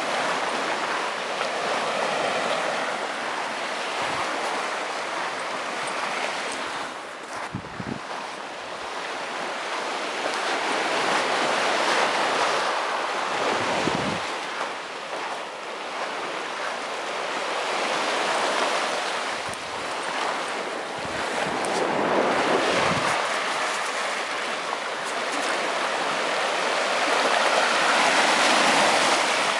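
Small sea waves breaking and washing up a sandy beach, the hiss swelling and falling away every several seconds. A few low buffets of wind hit the microphone.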